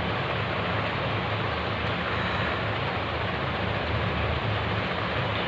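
Steady rushing background noise with a low hum, even throughout, with no other sound standing out.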